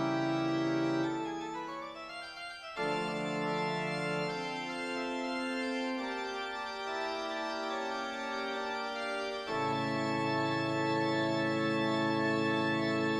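Organ music playing slow, held chords, which change about three seconds in and again about nine and a half seconds in.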